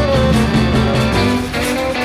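Background music: an upbeat instrumental track with guitar and a steady beat.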